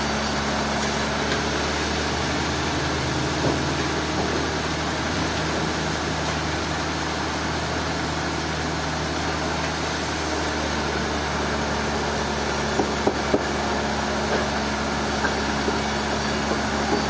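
Sawmill machinery engine running steadily at an even pitch, with a few light knocks about three quarters of the way through.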